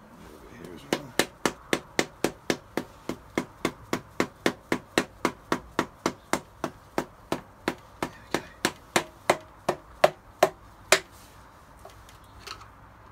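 Small hammer tapping gently and steadily on a part of a Toyota 4AGE engine to work it free, about three light strikes a second. The last few strikes are harder, and the tapping stops about eleven seconds in.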